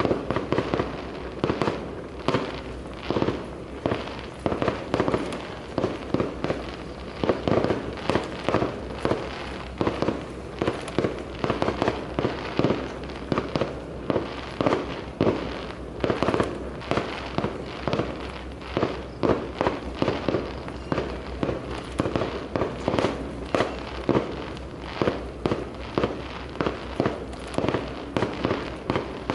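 Fireworks display: aerial shells bursting in quick succession, about two or three bangs a second, each with a short echo, over a continuous rumble.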